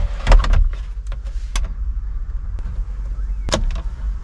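Hard plastic knocks and clicks as a car radio head unit is pushed and seated back into its dashboard slot. There are a few sharp taps, the loudest about three and a half seconds in, over a steady low rumble.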